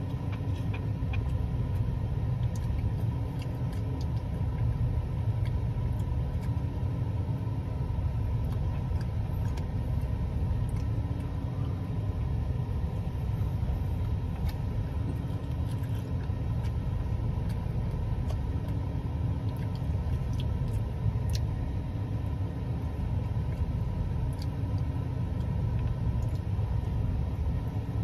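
Steady low rumble with a faint hum that wavers about every second and a half, with scattered faint clicks over it.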